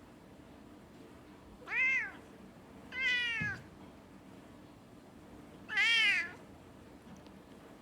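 Domestic cat meowing three times, each call about half a second long and arching up then down in pitch.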